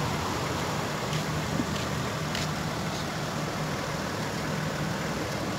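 Steady low engine hum under an even hiss, with a few faint clicks.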